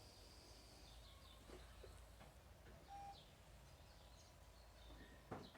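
Near silence: a faint steady low background rumble with a few faint chirps, and a sudden short noise just before the end.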